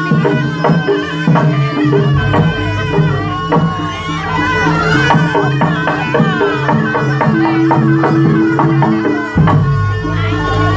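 Traditional Javanese jaranan ensemble music: steady drum strokes under held pitched tones and a high sliding melody, with a deep low tone that enters about two seconds in and drops out near the end.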